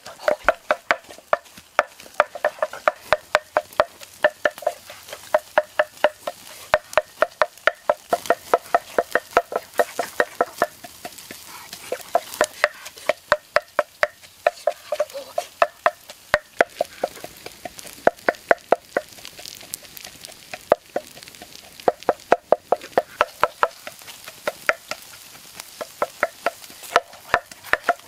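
A utensil working in a bowl: rapid, even knocks about four a second, in runs broken by short pauses.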